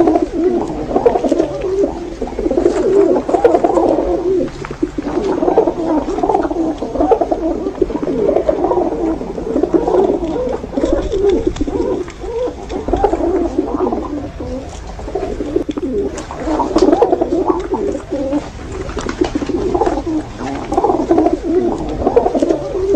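Many pigeons cooing continuously, low overlapping burbling calls from several birds at once.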